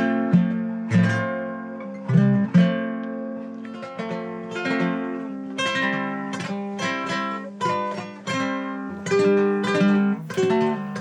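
Acoustic guitar picking a melodic lead passage, single plucked notes over a ringing low bass note, a punteo in the style of Colombian campesino music.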